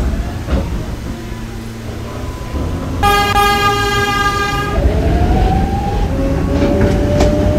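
A knock at the start, then a New York City subway train sounds its horn for a little under two seconds. Its traction motors then whine, rising in pitch in steps as the train accelerates over a steady rumble.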